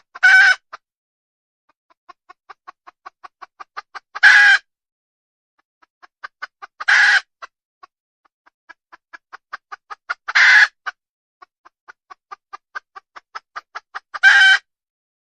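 Desi hen cackling: a run of short, soft clucks, about four a second and getting louder, leads each time into one loud drawn-out squawk. The pattern repeats five times at an even pace.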